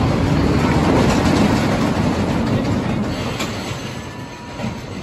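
Empty train of a GCI wooden roller coaster running along the wooden track, rumbling and clattering. Loudest at first, it fades away over the last second or two.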